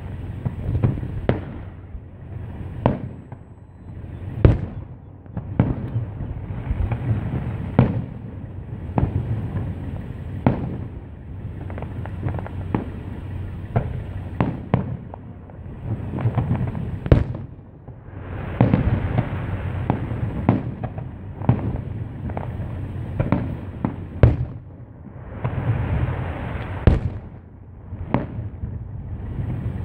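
Aerial fireworks shells bursting in a display, a string of sharp bangs at uneven intervals of about one to two seconds over a continuous low rumble.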